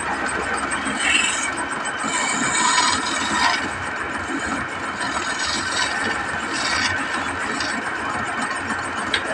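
Wood lathe running while a hand-held turning tool cuts into the spinning wooden workpiece: a steady scraping hiss, louder and sharper for a moment about a second in and again around the third second.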